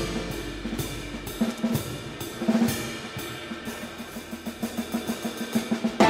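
Jazz drum kit taking a short break in a swing tune: cymbal strokes over an even run of snare hits at about four a second, with the other instruments mostly dropped out until the band comes back in at the end.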